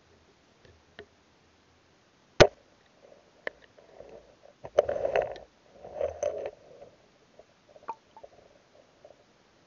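Muffled underwater sound picked up through a waterproof action camera's housing: a single sharp knock about two and a half seconds in, then dull gurgling rumbles of moving water and scattered faint clicks.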